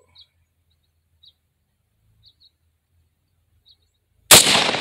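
A single AR-15-style rifle shot about four seconds in, sharp and loud, followed by a long echoing tail. Before it there is only quiet with a few faint high chirps.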